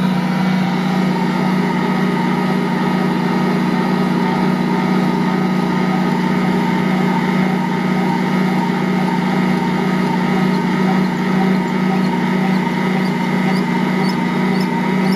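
Ankarsrum Assistent Original stand mixer running at a fast speed setting, its roller kneading a large batch of bread dough around the steel bowl: a loud, steady motor hum.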